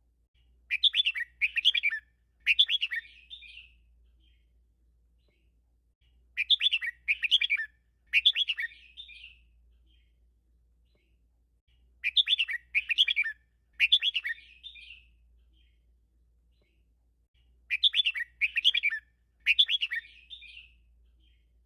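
Red-whiskered bulbul singing a 'double-three' teacher song, the kind of song played to train caged bulbuls. It sings four phrases, each of three loud warbled notes with a short trailing flourish, repeated about every six seconds.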